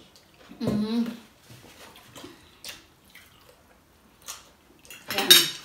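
Eating at a table: scattered light clicks of cutlery on plates and mouth noises, with a short vocal sound about a second in and a louder one near the end.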